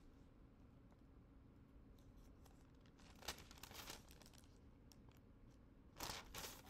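Near silence, broken by two brief soft rustles, one about three seconds in and a slightly louder one near the end.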